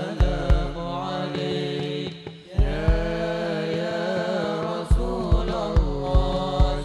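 A group of young men singing a sholawat in unison on long, wavering held notes, with hand drums and a deep bass drum beating underneath. About two seconds in, the voices and drums break off briefly, then come back together. Near the end the drum beats come quicker, about three a second.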